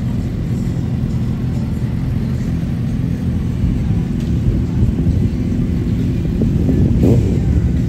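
Several sport motorcycle engines idling together in a steady low rumble, swelling briefly near the end.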